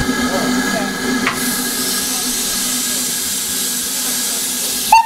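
Saddle-tank steam locomotive standing at the platform, hissing steadily as steam escapes; the hiss builds up a little over a second in. A brief, loud, sharp sound comes just before the end.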